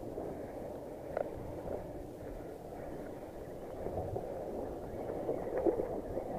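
Sea washing against the rocks with wind on the microphone, a steady rushing noise, with one sharp click about a second in.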